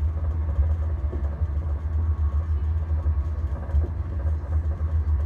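Running noise of a moving passenger train, heard inside a soft sleeper compartment: a steady low rumble from the wheels and bogies on the track.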